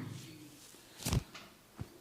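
Hand slaps on skin during a barber's head massage. The first slap's tail is fading at the start, a louder slap comes about a second in, and a lighter one comes near the end.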